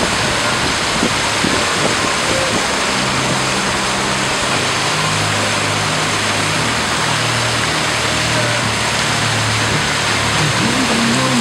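Steady rush of water splashing from a large fountain's jets and cascades. Underneath, from about two seconds in, a low hum that shifts in pitch in steps.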